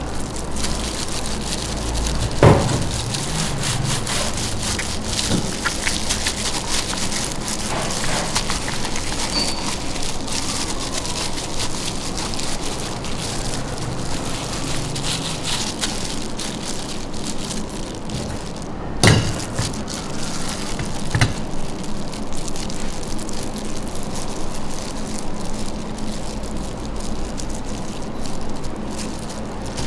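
A steady crackling hiss with a few dull knocks, the loudest about 19 seconds in.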